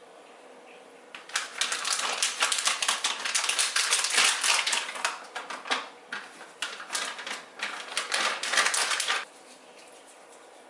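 Rapid, dense clatter of small hard clicks lasting about eight seconds, breaking into separate bursts past the middle and then stopping suddenly.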